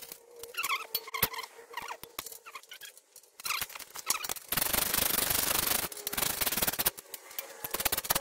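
Hand work on Model A front spring and axle hardware: scattered clicks early on, a burst of rubbing and scraping about halfway through, then a run of quick metal clicks as nuts are started.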